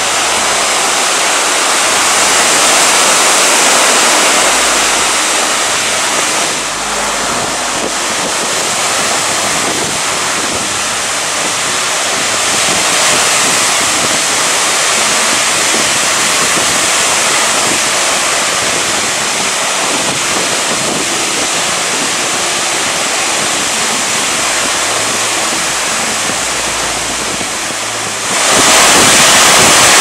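Ocean surf breaking and washing up a dark pebble shore: a steady rush that swells and eases, with wind buffeting the microphone. It jumps suddenly louder near the end.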